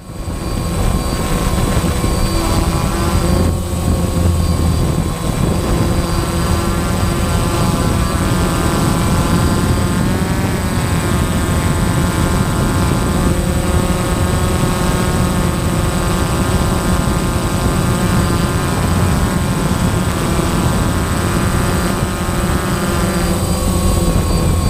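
Quadcopter's electric motors and propellers whining close to the on-board camera. The many-toned whine shifts up and down in pitch as the throttle changes, over a steady high whistle.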